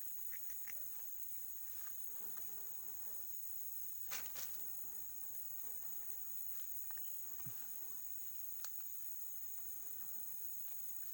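Steady high-pitched drone of forest insects, with a few sharp clicks, the loudest about four seconds in.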